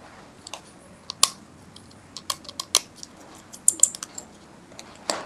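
Precision screwdriver working the tiny screws of a Nokia Lumia 520 phone's frame: irregular small clicks and light metallic taps, a dozen or so, a few with a brief ring.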